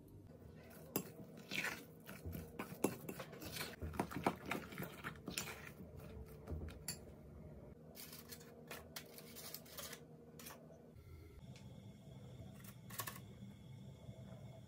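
Kitchen handling sounds during baking prep: many sharp clicks, scrapes and rustles of a metal spoon working cake batter in a glass bowl and of paper cake cases being set into a metal muffin tin. From about eleven seconds in it goes quieter, with a faint steady whine and a few more clicks as batter is spooned into a paper case.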